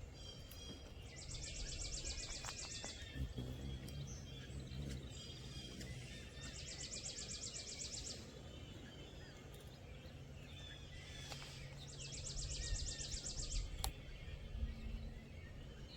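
A songbird singing a fast, dry trill of rapidly repeated high notes, about a second and a half long, three times about five seconds apart, with other birds chirping between songs.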